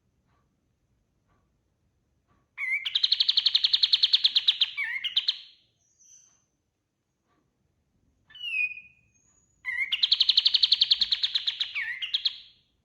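Kapas tembak (triller) singing: two long, very fast trills of rapid repeated notes, each about three seconds long and ending in a quick slurred flourish, with a short whistled call between them.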